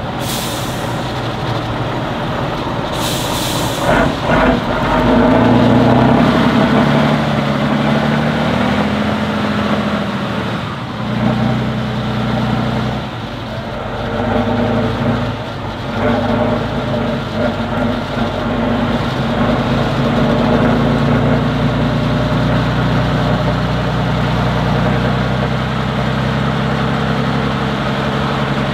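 Off-road competition truck's diesel engine revving hard, its pitch rising and falling again and again. A short hiss of air about three seconds in.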